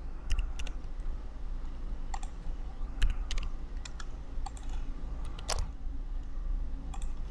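Computer keyboard being typed in sparse, irregular keystrokes, about ten sharp clicks with pauses between them, as letters in a text field are retyped as capitals. A low steady hum sits underneath.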